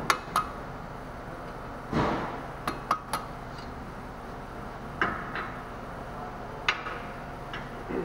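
Two sharp hammer blows on a hand impact driver, its Phillips bit seated in a rusty brake-rotor retaining screw to shock it loose. Scattered metal clinks and knocks follow as the tools are handled.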